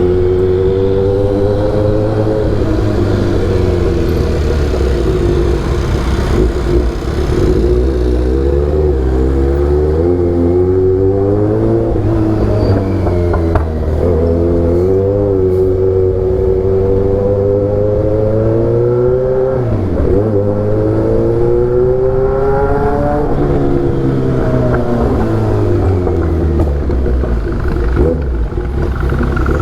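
Kawasaki Z800's inline-four engine through an Austin Racing aftermarket exhaust, pulling under throttle while riding. The pitch climbs steadily through each gear and drops back sharply at each shift or roll-off, about five times.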